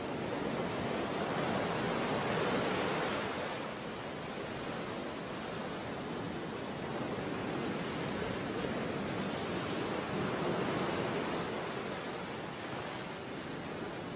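Sea waves washing on a shore, a steady rushing wash that swells up about two seconds in and again around ten seconds in, then eases.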